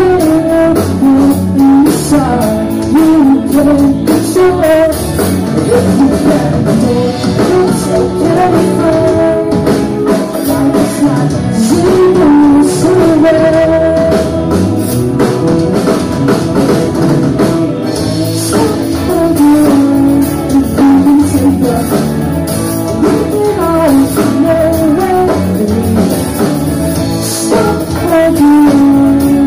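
Live band playing a song: electric guitars and a drum kit under a singing voice, heard through the room.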